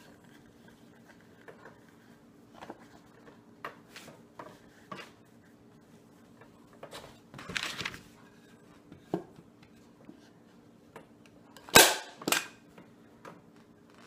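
PowerShot manual staple gun firing staples through upholstery fabric into a wooden chair-seat board: two sharp snaps about half a second apart near the end. Before them, fabric rustles and small clicks come from the material being pulled tight and handled.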